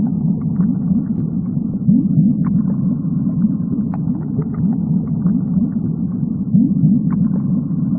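A low, steady rumble with repeated short upward swoops and a few faint clicks, starting and cutting off abruptly.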